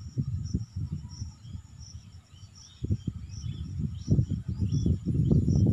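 Insects chirping steadily in the background, a high chirp repeating a few times a second, under louder low, uneven rumbling thumps that build from about four seconds in.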